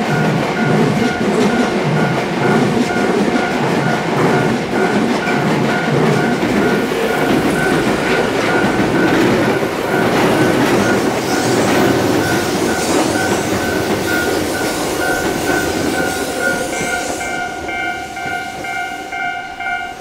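Two electric trains pass in turn over a Japanese level crossing, a Tobu commuter train and then a Ryomo limited express, with wheels rumbling and clattering over the rails. The crossing's warning bell rings continuously throughout, an evenly pulsing two-tone ring. Extra higher tones join it shortly before it stops at the very end.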